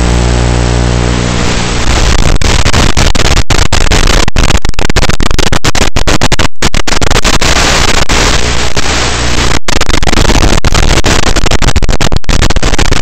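An RC model aeroplane's motor and propeller run with a steady pitched drone picked up by the onboard FPV camera. About two seconds in, the sound gives way to loud hiss and static with many brief dropouts as the analog FPV video link breaks up.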